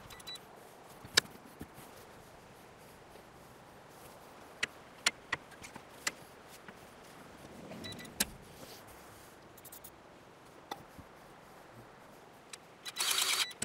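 Scattered sharp clicks and knocks from a grease gun coupled to a dry, seized bus-door hinge that is under full grease pressure. Near the end comes a short harsh burst of noise, about half a second long, as the compartment door is swung on the hinge to work it free.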